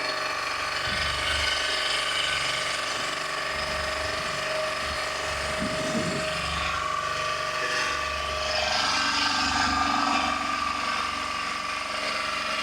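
A small motor running steadily, with a steady hum over a rattly, noisy background.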